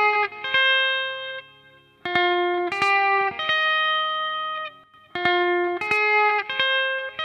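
Les Paul-style electric guitar playing a picked riff of ringing single notes, with two brief breaks, about two and five seconds in.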